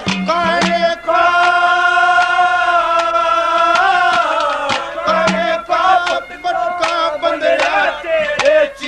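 Haryanvi folk singing: a man's voice holds one long note for about three seconds near the start, then moves into a wavering, ornamented melody, with sharp drum strokes throughout.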